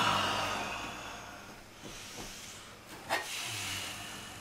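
A man's long breathy sigh that fades over a second or so, then quiet rustling movement with a single light tap about three seconds in.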